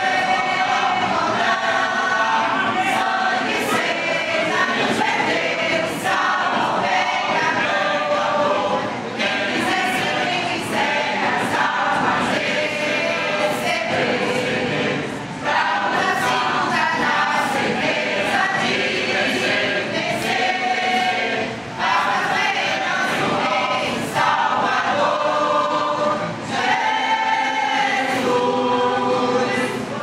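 A mixed church choir of women and men singing a gospel hymn together, with short breaks between phrases.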